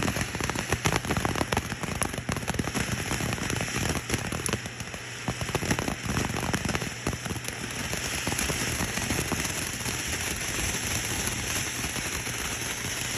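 A Disco Turkey novelty firework burning: dense, irregular crackling for the first several seconds, then settling into a steadier hiss.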